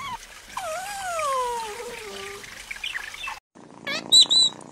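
A toy poodle's long whining howl that falls steadily in pitch over about two seconds. Near the end, a budgerigar gives a few quick high chirps over a cat's low purring.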